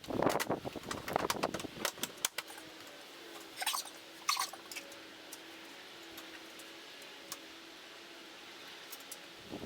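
Light metallic clicks and clinks, thick for the first two seconds and then scattered, with two short hissy scrapes around the middle, over a faint steady hum.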